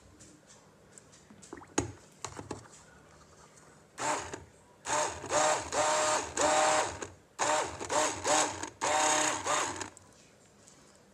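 Stick blender pulsed in cold-process soap batter: its motor runs in about six short bursts over the second half, winding up and down in pitch at each start and stop. A few light knocks come about two seconds in, before the blending.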